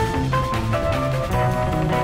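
Background music with a drum kit keeping a steady beat under held melodic notes.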